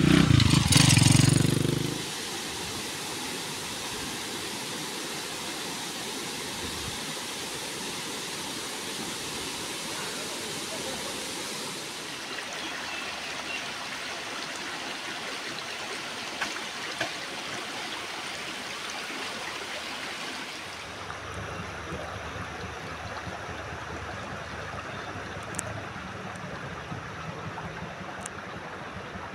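Shallow river water trickling and flowing steadily over sand and stones, after a loud low rumble in the first two seconds.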